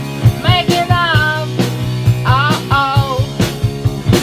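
Rock music with a steady drum beat and a lead melody that slides between notes over sustained low notes.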